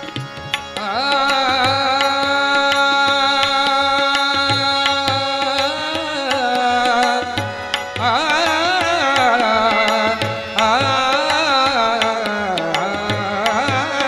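Marathi abhang sung by a male voice, without words: a long held note, then wavering, ornamented phrases, over a steady harmonium drone and a regular tabla beat.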